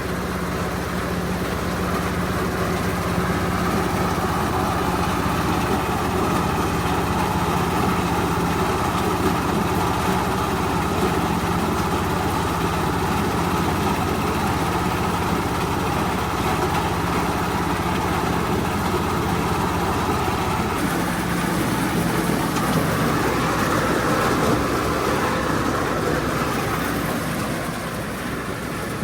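A corn sheller for unhusked cobs running on test, driven by a 30 hp Jiang Fa engine: a steady engine drone under the machine's rushing noise. About 21 seconds in, the engine's low tone weakens and the higher noise changes.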